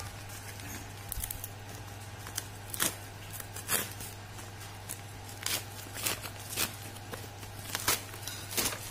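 White plastic courier mailer bag being pulled and torn open by hand: irregular crinkles and sharp tearing rustles, the loudest about three and four seconds in and near the end, over a steady low hum.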